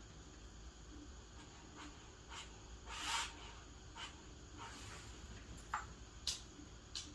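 A few short, quiet sniffs through a congested nose, the loudest about three seconds in, with a few small sharp clicks near the end.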